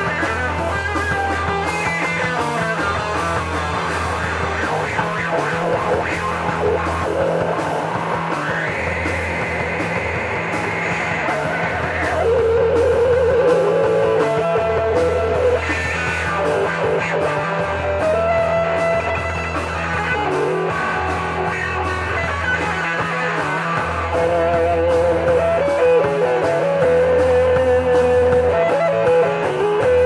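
Live rock band playing: electric guitars over drums and cymbals, with no vocals. The playing steps up in loudness about twelve seconds in and again near the end.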